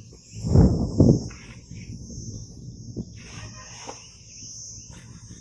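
Cardboard box and thermocol packing scraping and rubbing as a folding study table is pulled out of it: a loud burst of handling noise about half a second in, then a sharp knock near the middle and softer shuffling.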